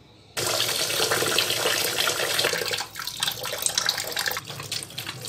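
Kitchen tap water running into a steel bowl of kidney and liver pieces in a sink, coming on suddenly about half a second in: the flour-rubbed meat being rinsed clean.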